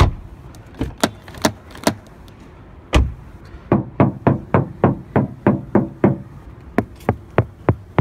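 Knocks on a car door's sheet-metal outer panel, sounding hollow with an echo, the sign of a panel area that has no sound-deadening behind it. A few spaced knocks at first, then a quick run of about three to four knocks a second from a little past halfway.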